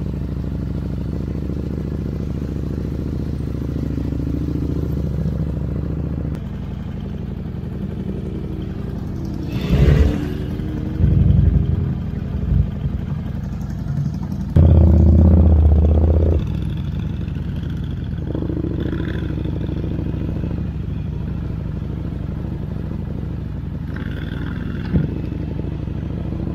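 Motorcycle engine running steadily under way, with a steady low drone. Several louder low bursts and a sharp knock break in about ten to sixteen seconds in.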